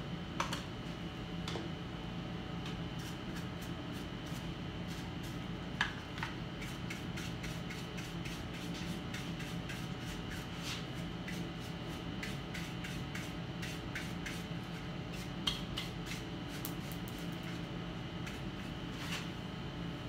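Scattered small clicks and rubbing of small parts and tools being handled by hand, a few of the clicks a little louder, over a steady background hum.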